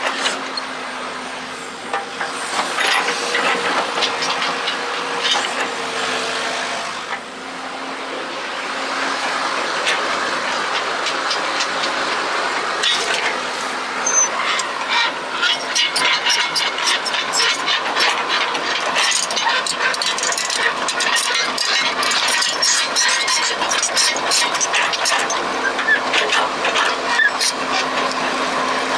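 Excavator working: its engine runs steadily while the bucket scrapes and clatters through soil and stones, with frequent sharp knocks that grow thicker about halfway through.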